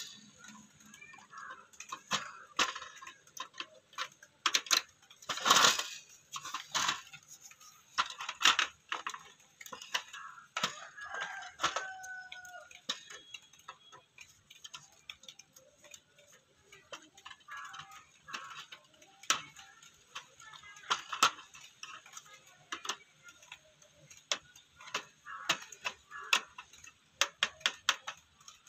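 Scattered clicks, taps and knocks of plastic and metal as an old cassette radio's opened plastic cabinet and circuit board are handled and worked with a screwdriver, the loudest knock about five seconds in. A short bird call comes about eleven seconds in.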